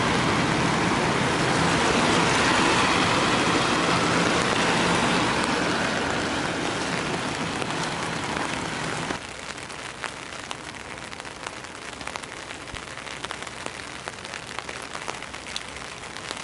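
Heavy trucks passing on a rain-soaked road: tyre hiss on wet asphalt over a low engine hum, slowly fading away. About nine seconds in it cuts to steady rain, with scattered drops ticking close by.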